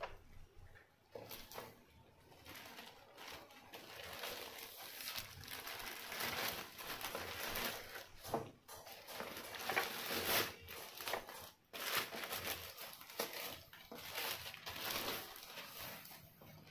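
Plastic courier mailer bag crinkling and rustling as it is handled and opened and a boxed bathroom scale is pulled out of it.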